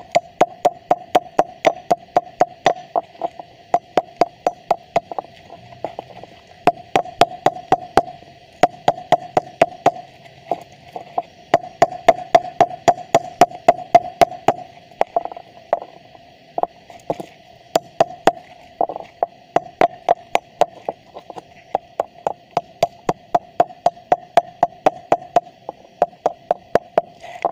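Claw hammer striking a small epoxy-encased transformer in rapid sharp blows, about three a second in runs with brief pauses, knocking the epoxy and steel laminations loose from the copper winding. A steady hum runs underneath.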